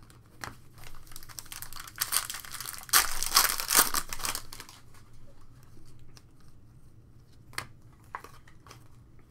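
Foil trading-card pack wrapper being torn open and crinkled, the crackling loudest around three to four seconds in. Afterwards, quieter rustles and clicks of the cards and wrapper being handled.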